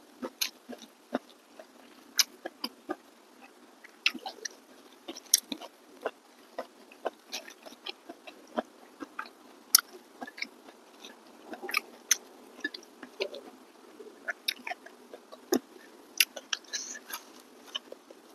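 A person chewing and lip-smacking while eating rice with fish curry by hand: many short, irregular sharp clicks and smacks, several a second.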